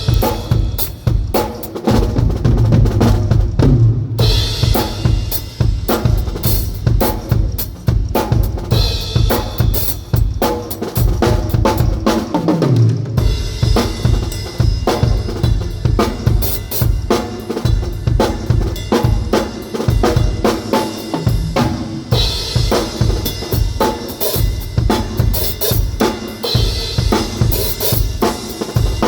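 Acoustic drum kit, a Tama kit with Zildjian cymbals, played continuously: fast, dense kick and snare strokes with fills, and the cymbals washing in over several stretches of the playing.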